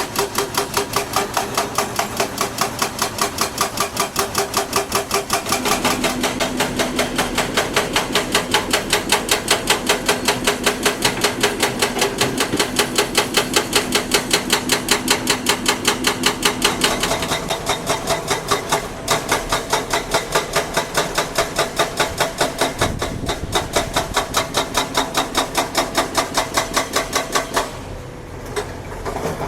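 Heavy construction machinery giving a fast, even, rhythmic clatter, with a steady hum underneath that comes and goes; the clatter drops away briefly near the end.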